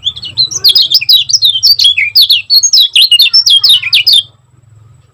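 Kecial kuning, a yellow white-eye, singing a fast, tightly packed string of high chirping notes for about four seconds, then stopping abruptly. Keepers call this 'speed rapat' song.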